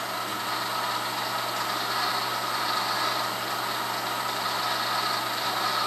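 Acer E-Mill knee mill running steadily in low gear at a slow spindle speed of about 200 RPM, a steady hum, while a 6-flute countersink is fed down into a drilled and tapped hole.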